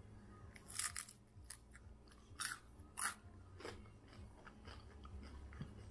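A crisp of microwaved grated mozzarella being bitten and chewed: a few sharp crunches spread over several seconds, the brightest just under a second in. The crunch shows the cheese has crisped up.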